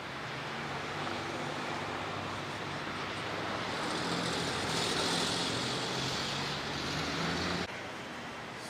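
Road traffic: a vehicle passing on the street, its sound growing louder to a peak about halfway, then cut off sharply near the end.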